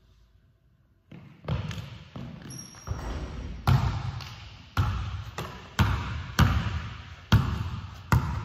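A basketball bouncing repeatedly on a hardwood gym floor, each thud echoing in the large hall. The bounces start about a second in and come every half second to a second.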